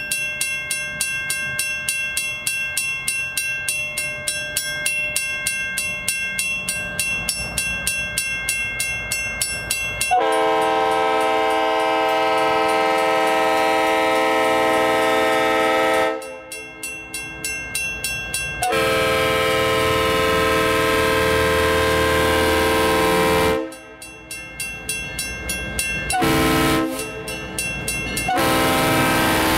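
A railroad grade-crossing bell rings steadily, about two strokes a second. About a third of the way in, the approaching GP38-2 diesel locomotive starts sounding its air horn for the crossing in the long, long, short, long pattern. The engine's low rumble grows as it nears.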